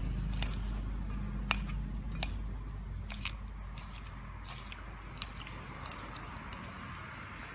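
Chopsticks stirring cut raw long beans in a stainless steel bowl: short, sharp clicks and taps of the sticks against the metal and the crisp beans, a little more than one a second.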